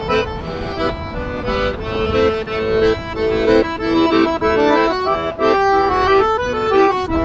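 Piano accordion playing a tune: held chords under a melody whose notes change every half second or so.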